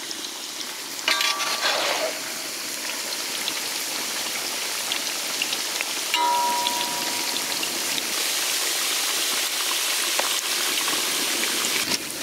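Batter-coated bitter gourd deep-frying in hot oil: a steady sizzling hiss with fine crackles, a little louder from about six seconds in. A short pitched sound with overtones cuts in about a second in and again around six seconds.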